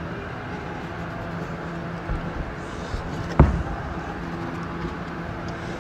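A heavy thud about three and a half seconds in, over a steady background hum, with a few lighter knocks just before it.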